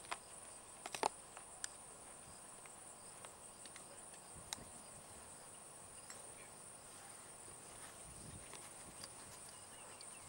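A steady high-pitched insect chorus, with a few short sharp clicks, the loudest about a second in.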